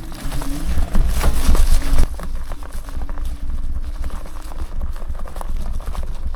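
Electric bike riding over a rough trail: an irregular clatter of knocks and rattles as it jolts over the bumps, over a heavy low rumble. It is loudest about a second in, and a faint steady hum drops out about two-thirds of the way through.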